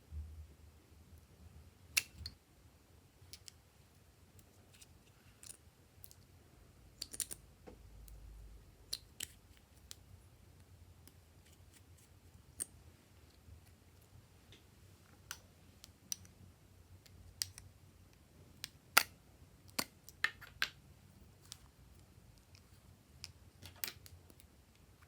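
Glossy slime being kneaded and stretched by hand, giving irregular sticky clicks and small pops, with a few louder snaps.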